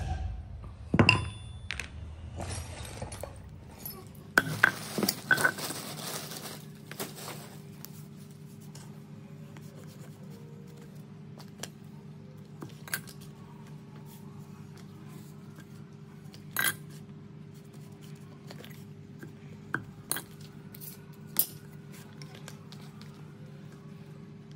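A wooden mallet knocking a metal punch through leather on a wooden block: a few sharp strikes in the first six seconds. Then only occasional light metal clinks and taps as tools are handled, over a steady low hum that begins about five seconds in.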